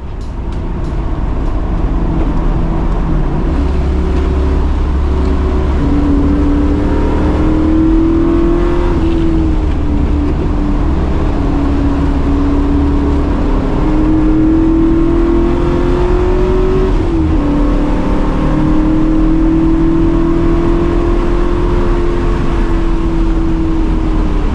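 Fourth-generation Pontiac Firebird's V8 pulling hard on track. The engine note climbs steadily and drops abruptly twice, about nine and seventeen seconds in.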